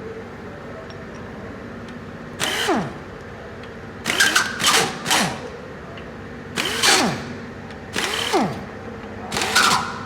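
A power tool run in about eight short bursts, each ending in a falling whine as it spins down.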